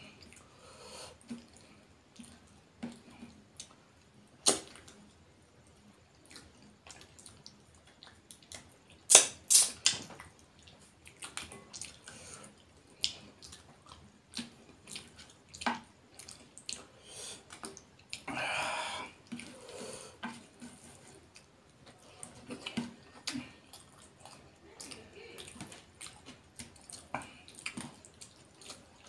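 Close-miked eating sounds of a person eating rice and fish curry by hand: wet mouth clicks, lip smacks and chewing, with scattered quiet ticks and a few louder smacks.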